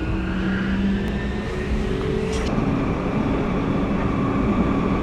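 Munich U-Bahn train running, heard from inside the carriage: a steady rumble of wheels on track with the whine of the electric traction motors, which shifts in pitch about halfway through.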